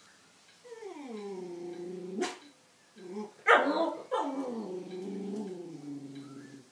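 Jack Russell–beagle cross dog baying at another dog: a long drawn-out howl that starts high and drops, a sharp yelp about two seconds in, a loud bark about a second later, then another long howl that drops and holds.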